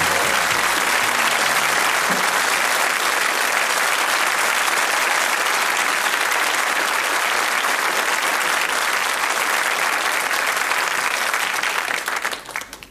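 A studio audience applauding steadily after a song, the song's last notes dying away at the very start. The applause fades quickly and stops near the end.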